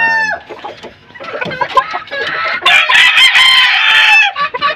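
Gamefowl rooster crowing: the tail of one crow falls away right at the start, then a long, loud crow begins about two seconds in and drops off near the end.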